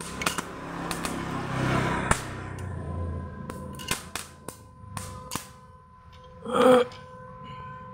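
An inverter stick welder under test, with arc crackle and sharp snaps for the first two seconds or so, then scattered clicks over the machine's steady hum. A loud knock comes shortly before the end.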